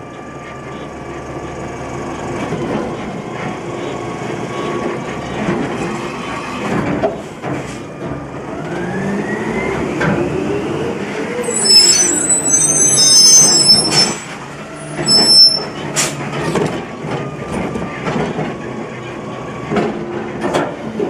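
Automated side-loader garbage truck working its route: the diesel engine and hydraulics run throughout, with the engine pitch rising and then falling as the truck pulls ahead. From about halfway in, loud high-pitched squeals sound for a few seconds, and several sharp metal clanks are heard, the loudest shortly after the squeals.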